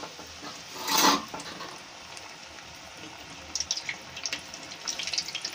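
Rava-maida appam batter deep-frying in hot oil in a metal kadai: steady sizzling and bubbling, with a louder burst about a second in and sharp crackles near the end.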